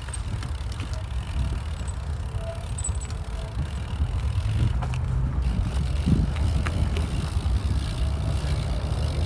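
Bicycle rolling over an unimproved dirt trail: a steady low rumble of tyres and wind on the microphone, with a few faint rattles and knocks.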